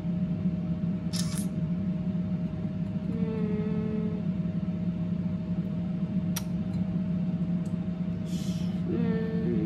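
Air fryer running: a steady, fairly loud fan hum with a faint high whine over it. A sharp click sounds a little past the middle, among a few lighter ticks.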